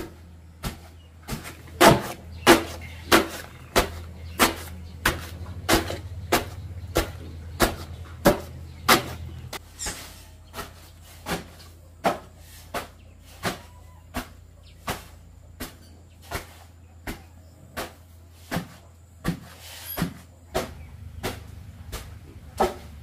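A long wooden pestle pounding into a wooden log mortar, pounding cassava: a steady run of thuds about one and a half a second. The strokes are heaviest in the first third and lighter from about ten seconds in.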